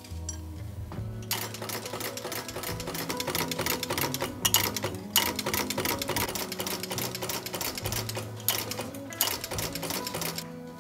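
Motor-driven punch machine rapidly clattering as it punches a row of holes in a plastic racket grommet strip. It starts about a second in and pauses briefly twice. Background music plays underneath.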